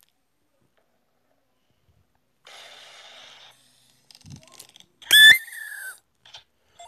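Cartoon sound effects: after a pause, a short hiss, a few small clicks, then a loud high whistle-like squeal that slides down in pitch.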